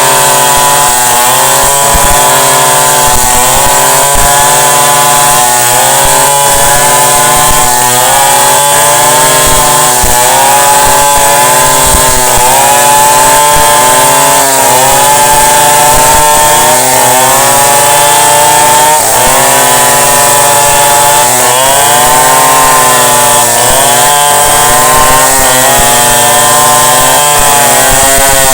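Chainsaw running hard and cutting wood, its engine pitch dipping under load and picking up again over and over.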